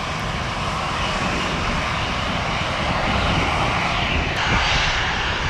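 Jet airliner engines running: a steady rushing roar that grows a little louder in the second half.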